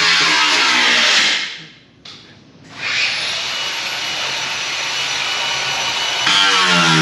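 Power tool cutting metal on a car's underbody with a steady harsh hiss; it stops about a second and a half in and starts again nearly three seconds in, running steadily after that.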